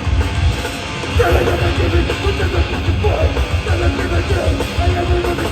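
Hardcore band playing live: distorted electric guitar riffing over loud bass and drums.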